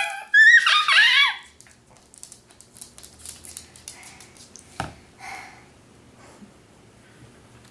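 A dog howling briefly, its pitch rising and falling for about a second at the start, after the harmonica has stopped. Then a quiet room with a few light clicks and one sharp knock about five seconds in.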